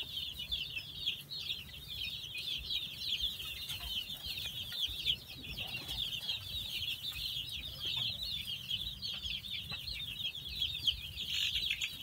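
A brood of young chicks peeping continuously, many high, short, falling chirps overlapping.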